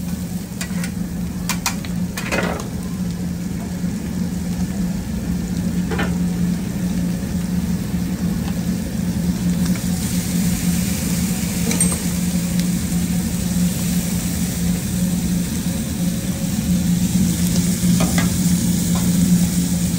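Food and oil sizzling on a hot flat-top griddle, with a few sharp metal spatula clinks and scrapes in the first seconds. From about ten seconds in the sizzle grows louder as liquid is poured over the molcajete and runs onto the hot steel, over a steady low hum.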